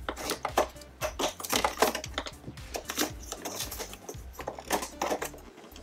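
Hard plastic pieces of a toy Technodrome playset clicking and knocking against each other as a part is handled and fitted to its underside: irregular sharp taps and clacks.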